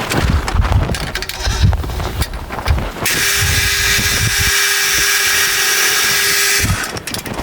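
A drill cutting a small hole in a steel part: a loud steady hiss with a single steady hum starts about three seconds in, runs for about three and a half seconds and cuts off abruptly. Low knocks and handling sounds come before it.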